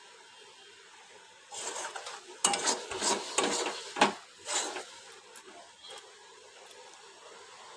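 Metal spatula scraping and stirring a thick, dry fish mixture in a metal pan: a run of scrapes and clinks lasting about three seconds, with one sharp knock about four seconds in.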